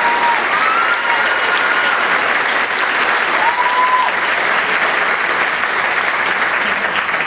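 Auditorium audience applauding steadily.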